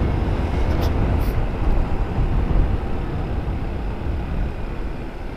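Steady wind rumble buffeting an outdoor microphone, mixed with vehicle and road noise; it eases slightly near the end.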